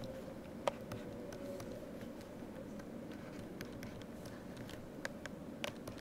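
Faint scattered clicks and light taps of a stylus writing on a pen tablet, over a faint steady hum.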